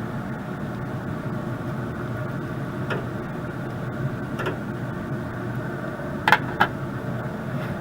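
Pellet grill running with a steady hum, with a few sharp clicks: two faint ones, then two louder ones close together near the end.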